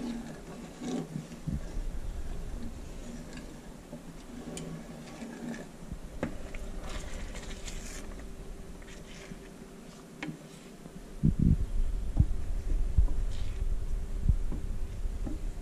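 Wooden spoon stirring and scraping cream sauce in a stainless-steel skillet, with small clicks and taps of the spoon against the pan. Louder low thumps and rumbles come in about two-thirds of the way through.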